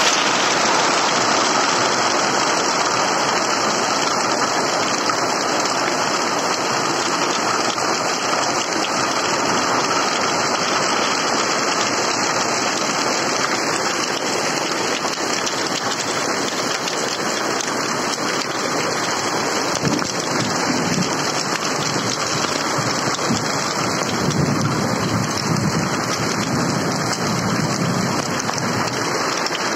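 Heavy rain mixed with small hailstones pelting a concrete yard: a dense, steady patter.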